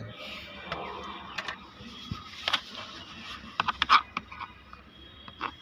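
Scattered clicks and light knocks from hand work on a car steering wheel, with a quick run of clicks about four seconds in.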